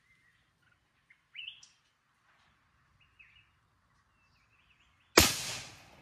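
Small birds giving a few short, faint rising chirps, then a single loud shot about five seconds in that cracks sharply and dies away within a second.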